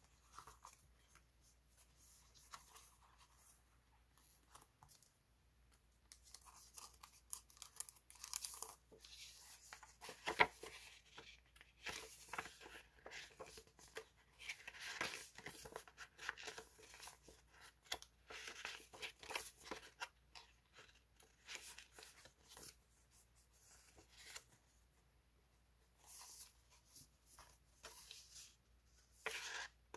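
Sheets of sticker paper and patterned scrapbook paper rustling and crinkling as they are handled, fanned out and shuffled through. The rustles come irregularly and thicken after the first few seconds, with a sharp tap about ten seconds in.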